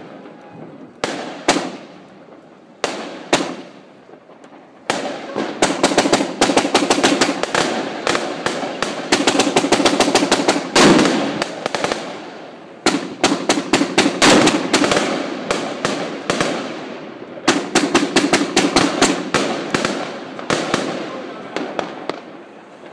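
Royal Fireworks Mega Cakebox, a 238-shot fireworks cake, firing: a few single shots at first, then rapid volleys of launches and bursts, several a second, in three bouts with brief let-ups, thinning out near the end.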